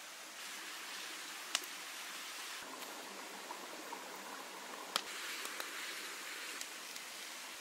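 Rustling of evergreen boughs being carried and handled, over a steady rushing hiss, with two sharp snaps, one about a second and a half in and one about five seconds in, and a few lighter ticks.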